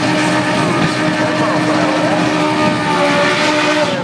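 Drag car doing a burnout: engine held at a steady high rev while the rear tyres spin, the note ending near the end as the car rolls out of the smoke.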